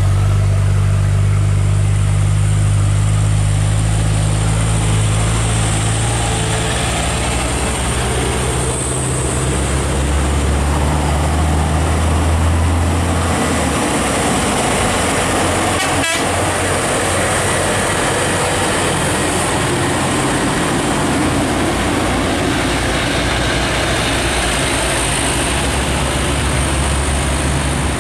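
Heavy diesel truck engine running under load on a climb, its low drone shifting in pitch several times, over steady road noise.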